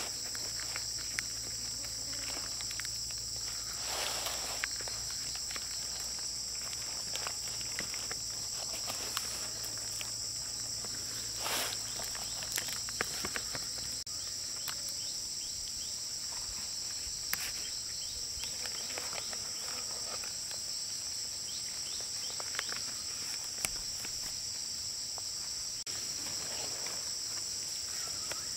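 A steady, high-pitched insect chorus drones without a break, with scattered light rustles and clicks from banana leaves and dried fish being handled.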